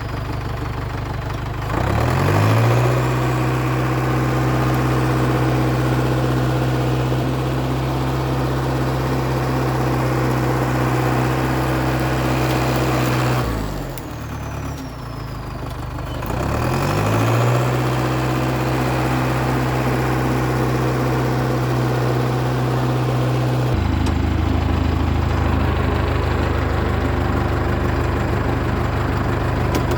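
International Harvester TD8E crawler dozer's D-239 diesel engine working: it revs up about two seconds in and holds steady under load. It drops back briefly around the middle, revs up again, and changes tone near the end.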